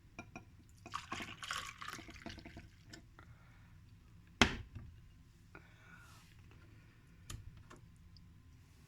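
Smoothie being poured and dripping into a glass, with small clicks and splashes, and one sharp knock of glass set down about four and a half seconds in.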